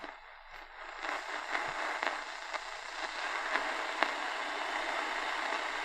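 Medium wave static from the Realistic DX-350 portable radio's speaker as it is tuned between stations: a steady hiss, with faint crackles, that comes up about a second in.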